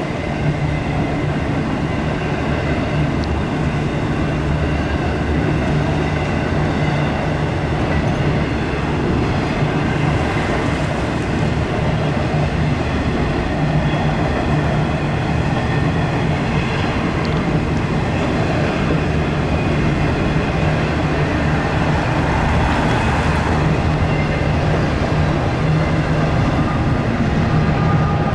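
Double-stack intermodal freight train rolling past: a steady, continuous rumble of steel wheels on rails, with faint high ringing tones above it.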